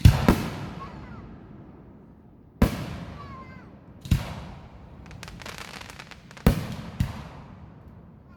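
Aerial fireworks bursting: six sharp bangs a second or two apart, two of them in quick pairs, each trailing off in echo. A patter of crackles comes shortly before the fifth bang.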